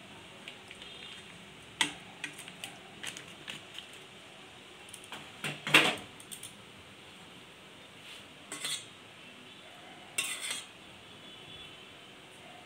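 A spatula scraping and clinking against a metal cooking pan and a steel bowl as a thick mustard fish curry is tipped and scraped out. The clanks and scrapes come in scattered groups, the loudest about six seconds in, with another burst of scraping near ten seconds.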